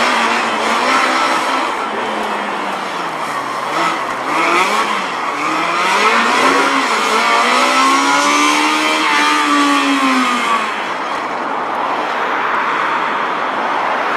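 Honda T360 kei truck's small twin-cam four-cylinder engine revving up and down as it is driven hard around the cones, its pitch rising with each acceleration and dropping as the driver lifts. The longest pull starts about seven seconds in and falls away after about ten seconds.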